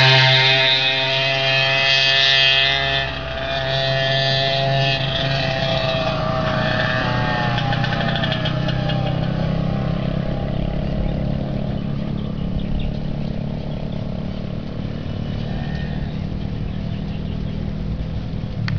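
Yamaha Chappy 80cc two-stroke moped engine riding away after passing close by, its note falling and fading out over about ten seconds. A steady low rumble continues after it, with a few sharp clicks near the end.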